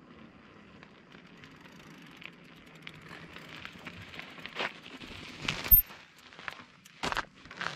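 Crackling, rustling noise of a bicycle rolling on a dirt road, growing louder, with several sharp knocks and clicks in the second half.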